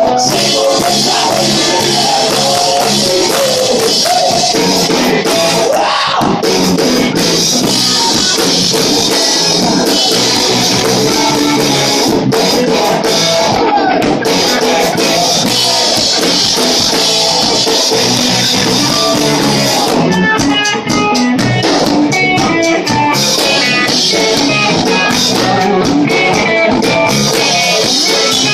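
Rock band playing live: distorted electric guitars, bass guitar and drum kit together in a loud, dense wall of sound, with a run of distinct picked guitar notes standing out about two thirds of the way through.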